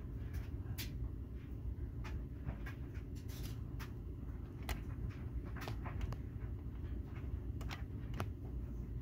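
Scattered light clicks and taps of a small screwdriver and a hard plastic diecast display base being handled as the screws holding the model truck are backed out, over a steady low hum.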